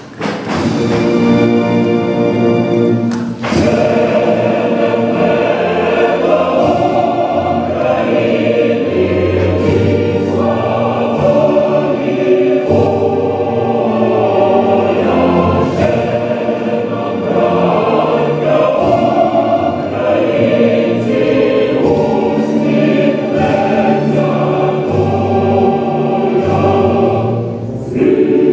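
Choral music: a choir singing sustained, held notes.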